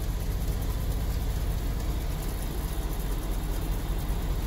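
Steady low rumble of an idling semi truck's diesel engine, heard from inside the cab.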